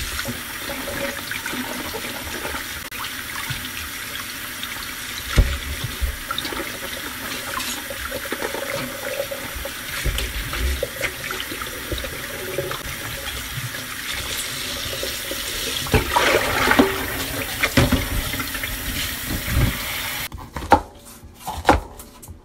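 Kitchen tap running into a sink while something is rinsed under it, with small knocks and splashes. The water shuts off about 20 seconds in, followed by a few sharp knocks.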